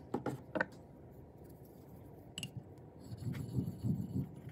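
A few light clicks and taps, then from about three seconds in a steel chisel is rubbed back and forth on a wet 12,000-grit sharpening stone, making a soft, rhythmic scraping.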